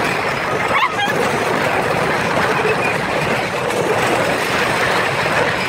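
Roller coaster ride heard from the front car: a loud, steady rush of wind over the phone's microphone mixed with the train running along the track.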